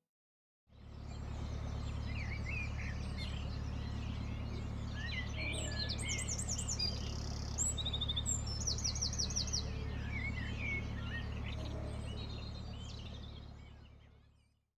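Birds chirping and singing in a busy chorus, with rapid high trills around the middle, over a steady low drone from a narrowboat's diesel engine running while cruising. The sound fades in about a second in and fades out near the end.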